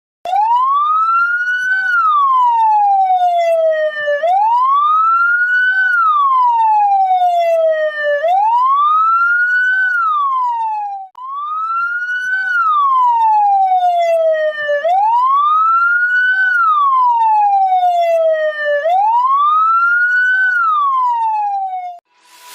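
Electronic ambulance siren in a slow wail, its pitch rising and falling about every four seconds, six times over, with a brief break about halfway through.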